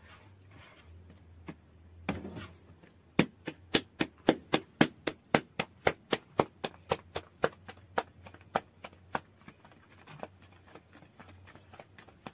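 Soft bread dough slapped back and forth between the palms to stretch it into a thin flatbread for the tandoor: a quick, even run of sharp slaps, about four a second. The slaps start about three seconds in and stop about six seconds later.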